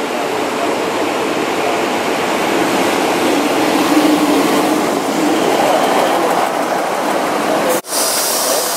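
Diesel multiple-unit passenger train running into the station platform and passing close by: a steady rumble of wheels and engine with a faint tone that rises and falls. Near the end the sound cuts off abruptly and a hiss follows.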